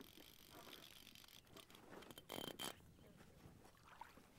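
Near silence: faint open-air ambience, with a couple of brief faint sounds about two and a half seconds in.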